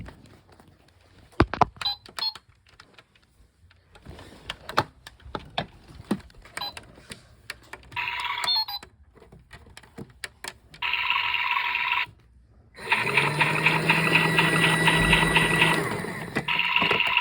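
Handling clicks and taps, then a small battery-powered toy washing machine's motor running in short bursts with a rattling buzz. It stops and restarts several times, the way the toy sometimes gets stuck.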